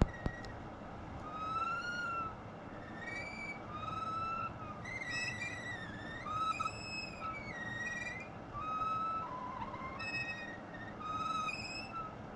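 Air purifier running with an odd whistling tone over its fan hiss. The tone wavers up and down in pitch and comes and goes in short phrases about every second or two, like singing or crying. It is an abnormal noise that raises the question of whether the unit is broken.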